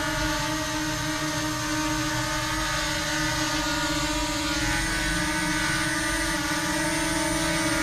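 DJI Mini 2 drone hovering, its four propellers giving a steady, even whine.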